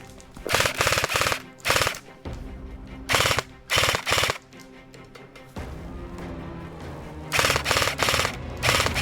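Airsoft light machine gun firing short full-auto bursts, each a rapid rattle of shots. There are about six bursts, with a pause of roughly three seconds midway. Background music plays underneath.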